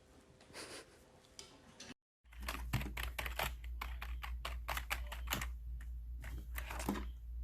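Rapid, irregular clicking and tapping over a steady low hum, starting right after a brief dropout to silence about two seconds in; the clicks are typing-like.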